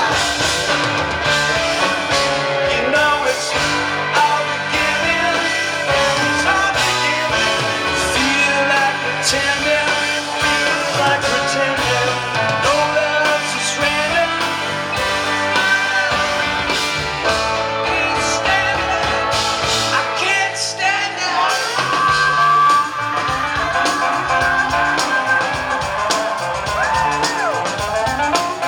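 Live rock band playing: electric guitars, bass and drums in a long passage between the sung verses.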